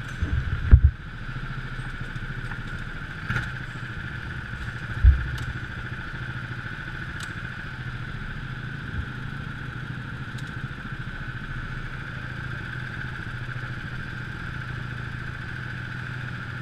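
Go-kart engine running at a steady, unchanging pitch, heard from on board the kart, with two short thumps, one right at the start and one about five seconds in.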